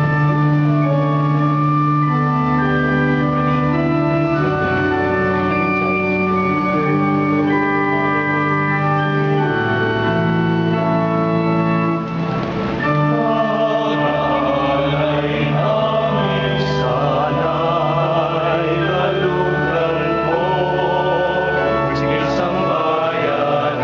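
Church organ playing held chords, joined about halfway through by a male choir singing a hymn in unison over it.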